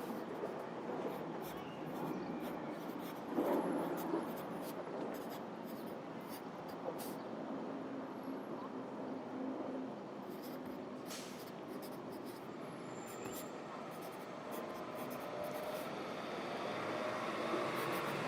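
Pencil scratching and writing on paper in short strokes, over a steady hum of city traffic.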